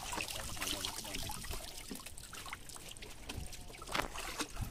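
Water trickling and dripping off a wet fishing net and a basket of freshly caught fish as they are handled, with many small irregular ticks and taps.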